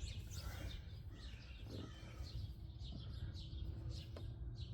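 Birds chirping: many short, quick chirps over a faint low background hum.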